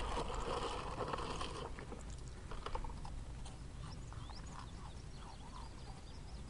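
Cheez-It cracker box and its inner bag rustling as a hand reaches in, for about the first second and a half, then faint scattered clicks and crackles.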